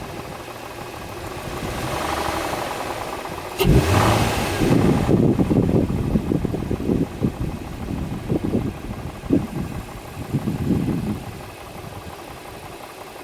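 2004 Infiniti FX35's 3.5-litre V6 engine running, swelling briefly about two seconds in. A sharp knock comes a little later, followed by loud, uneven low rumbling for about seven seconds before it settles back to a steadier idle. The owner takes it for an extraneous noise from the engine.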